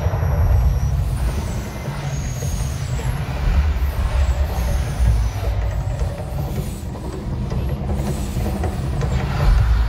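Mirage volcano eruption show: a loud, continuous deep rumble from the show's soundtrack and effects over its outdoor speakers, as the eruption's fire jets and lit water plumes go off.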